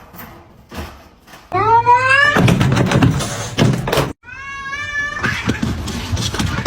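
Domestic cat meowing twice: a loud rising meow about a second and a half in, and another meow after an abrupt break about four seconds in, with a loud noisy stretch between them.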